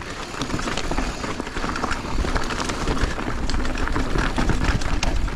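Mountain bike descending rough, rocky trail: tyres rumbling over rock with rapid, irregular clatter and knocks from the bike, and a steady low rumble of wind on the microphone.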